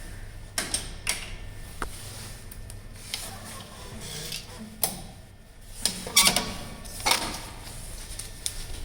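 Car park pay machine printing and issuing a receipt: irregular clicks and short mechanical bursts, the loudest about six to seven seconds in.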